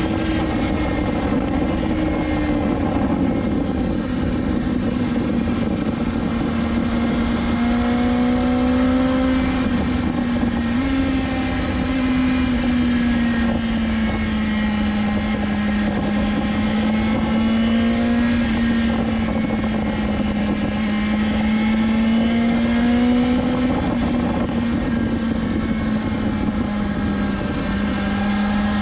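BMW S1000XR's inline-four engine at a steady cruise, its pitch easing down over the first few seconds and then drifting gently up and down with the throttle, under a constant rush of wind noise.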